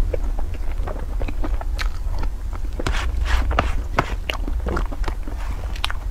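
Close-miked eating sounds: wet mouth smacks and chewing of soft cream cake, mixed with a metal fork scraping and tapping on the cake tray. The clicks come irregularly over a steady low hum.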